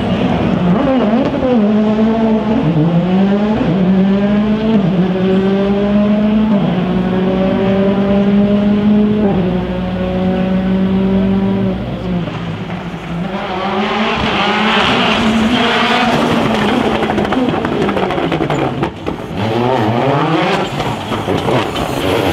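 Rally car engine revving hard through several gear changes, the pitch dropping at each shift and climbing again, then holding high. Later comes a rush of noise, and the engine pitch falls as the car slows and passes.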